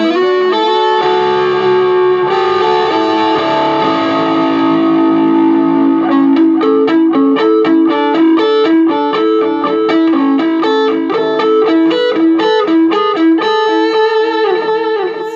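Electric guitar played through a 15-watt Marshall MG amp: long held notes and chords for the first few seconds, then a quick run of single picked notes.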